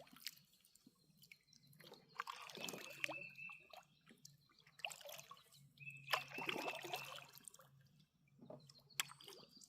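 Faint water splashing and dripping around a kayak, coming in soft surges about every three seconds with a few small ticks.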